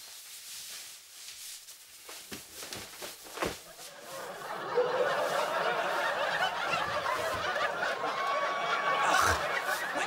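Sitcom studio audience laughing. A faint tail of laughter with a few small knocks comes first, then a loud burst of crowd laughter about five seconds in that carries on.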